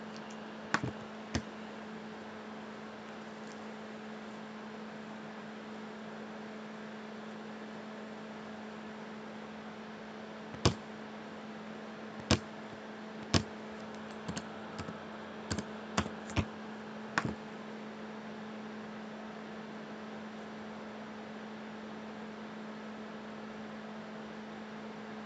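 Computer mouse clicks and keyboard keystrokes over a steady electrical hum: a few clicks near the start, three louder clicks around the middle, then a quick run of lighter key taps.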